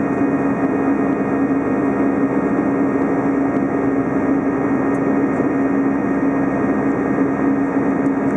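Airbus A320 cabin noise during climb-out: the jet engines and airflow make a steady drone with a strong, even low hum running through it.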